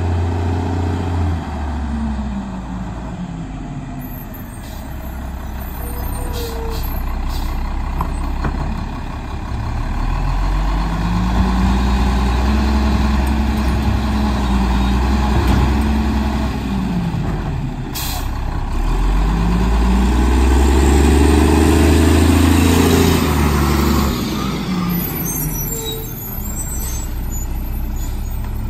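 Mack MR McNeilus rear-loader garbage truck's diesel engine growling as it drives up. Its pitch rises and falls twice as it pulls forward, and it is loudest just before it stops. A brief hiss of air brakes comes near the end as it halts, and then the engine idles.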